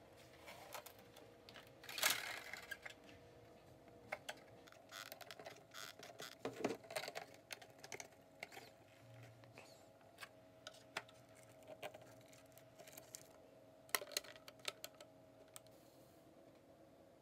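Light clicks, taps and short scrapes of hands handling 3D-printed PLA model-airplane parts, plastic pieces knocking and pressing together. A longer, louder scrape comes about two seconds in and a quick cluster of clicks near the end.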